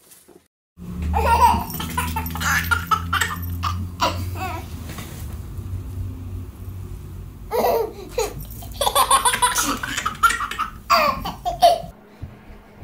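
A baby laughing in several bursts, with a low steady hum under the first half.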